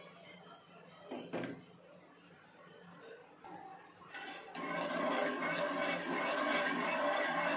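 A steel ladle stirring sugar and water in a nonstick saucepan to dissolve the sugar: a dense gritty scraping and clinking against the pan that starts about four seconds in. A single knock comes a little over a second in.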